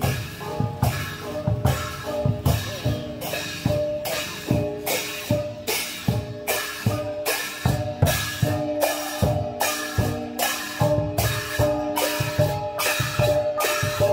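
Thai procession percussion band: a large drum, hand-held hanging gongs and cymbals struck together in a steady march beat, just under two strokes a second, with the gongs ringing on between strokes.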